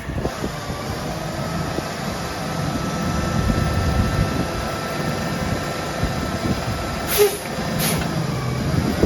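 Mack LR garbage truck running, a steady low rumble with a steady whine over it. Two short hisses sound about seven and eight seconds in.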